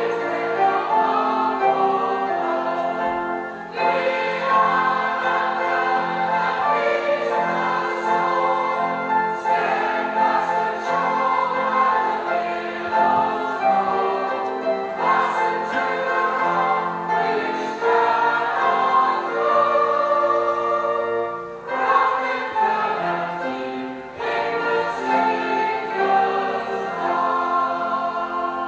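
A choir singing a hymn in long held phrases, pausing briefly between lines every few seconds.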